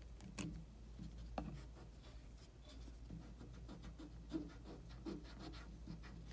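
Pencil scratching on paper in many short, irregular strokes while sketching, over a low steady hum.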